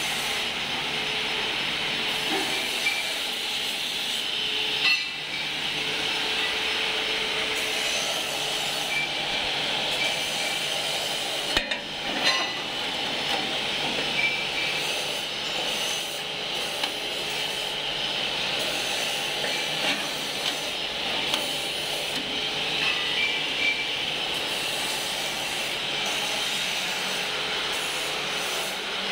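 Steady mechanical noise with occasional metallic clinks and knocks.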